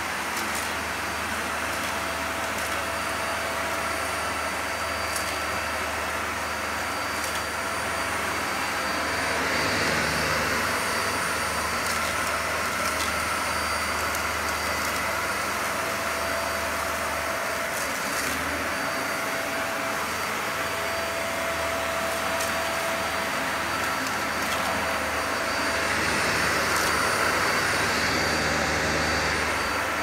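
Dyson Light Ball upright vacuum cleaner running and being pushed over a rug: a steady whine over a rush of air. It swells louder twice, once about a third of the way in and again near the end.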